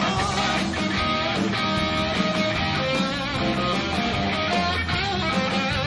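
Live rock band playing an instrumental passage, with electric guitar to the fore.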